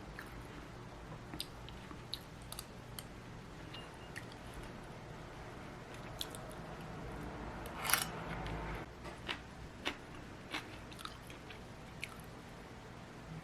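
Quiet eating sounds: chewing and bites, with scattered small clicks and taps, and a louder clatter about eight seconds in.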